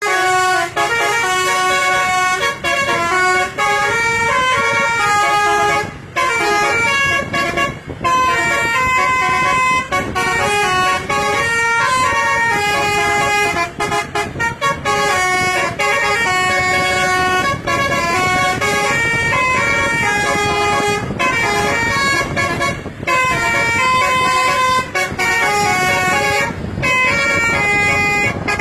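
Bus telolet horn module playing a quick melody of loud, steady horn notes, the pitch changing several times a second, with a couple of short breaks.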